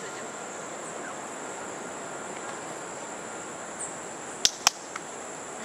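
Steady high-pitched insect drone over outdoor ambience, broken by two sharp clicks close together about four and a half seconds in, and a fainter click just after.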